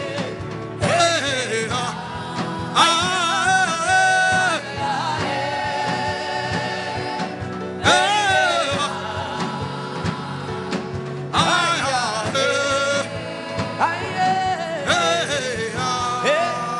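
Gospel worship singing with instrumental backing. A voice sings long held phrases with bending notes, over accompaniment with a steady run of percussive strokes.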